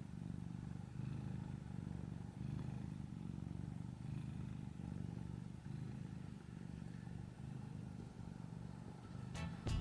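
Domestic cat purring close to the microphone: a low, steady rumble that swells and eases with each breath, about every second or so.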